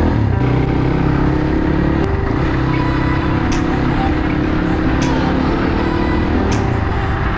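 Motor vehicle engine running steadily while under way, with a few sharp clicks spaced about a second and a half apart.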